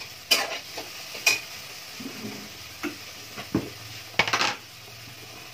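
Tomato gravy sizzling in a steel kadhai, with sharp metal clinks of kitchen utensils now and then. Just after four seconds comes a quick rattle of clinks as a spice box's lid is handled.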